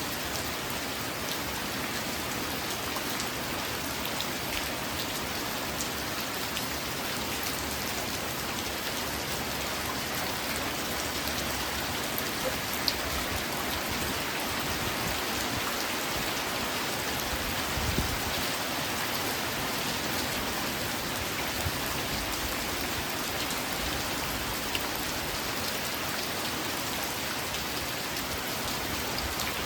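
Steady rain falling in an even hiss, with scattered louder individual drops and one soft low thump a little past halfway.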